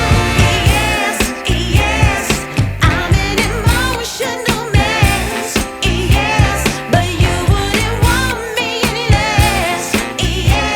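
Recorded music with a singer's voice and a steady, heavy bass beat, played loud through a newly built sound system's speakers during a sound check.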